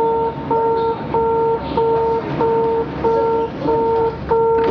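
Shanghai Metro Line 1 door-closing warning: an electronic beep with two or three stacked tones, repeating about one and a half times a second, eight beeps in all. It stops as the doors shut near the end.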